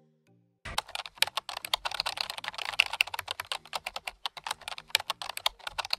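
Computer keyboard typing sound effect: rapid, uneven key clicks that start about a second in and run on, over faint background music.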